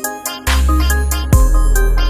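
Electronic background music with a deep bass line under a bright, stepping melody. The bass drops out for the first half second and then comes back in.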